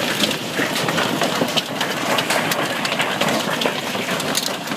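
Large hailstones pelting down in a dense, unbroken clatter of countless impacts.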